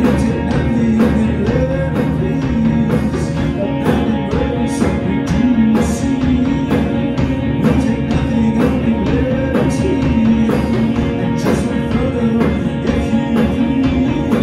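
Rock band playing live: distorted electric guitars with bending, wavering notes over baritone bass and a drum kit, with frequent cymbal hits.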